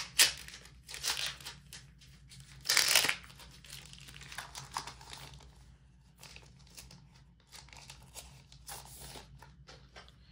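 Clear plastic sleeve crinkling as it is peeled and slid off a paper calendar poster, in irregular bursts, the loudest about three seconds in, then fainter rustling as the poster is handled.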